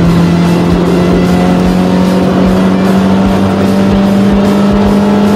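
Nissan Sentra B13's four-cylinder engine heard from inside the cabin, held in one gear under load, its pitch climbing slowly and steadily as the car gathers speed.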